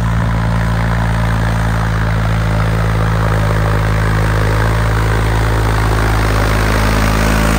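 New Holland 3630 tractor's diesel engine running steadily at an even speed, its note unchanging.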